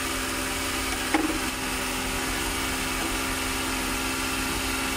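Suzuki Multicab engine idling steadily, with a short metallic clink of a hand tool about a second in.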